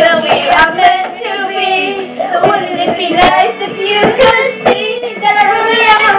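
Children singing a pop song, loud and steady, with short sharp hits along the way.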